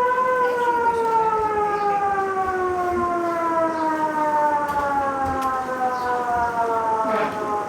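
A siren sounding one continuous tone that glides slowly and steadily down in pitch, winding down.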